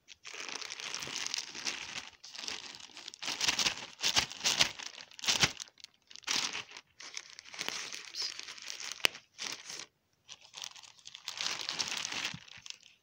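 Plastic mailer bag crinkling in irregular bursts as it is handled and opened, with short pauses and one sharp click about nine seconds in.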